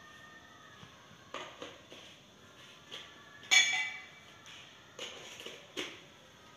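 Metal broom-handle tubes clinking and knocking against each other as they are picked up and screwed together, about six knocks in all. The loudest is a ringing metallic clink about three and a half seconds in.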